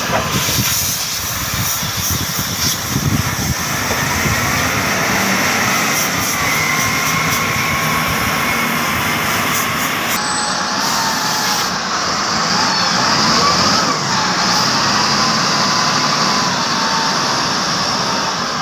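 Diesel engines of a wheel loader and a hydraulic excavator working, a steady heavy-machinery noise, with engine pitch rising and falling as they rev under load. The sound changes abruptly about ten seconds in.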